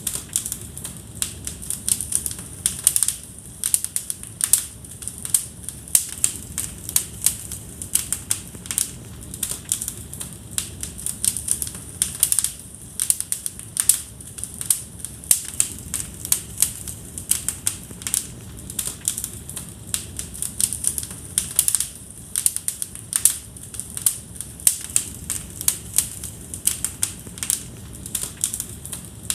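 Fire in a fireplace crackling: irregular sharp pops and snaps, several a second, over a low steady rush of flame.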